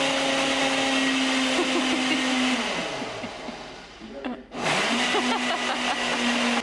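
Countertop single-serve blender running with a steady motor tone. Partway through it slows and stops, then starts up again a moment later and runs on.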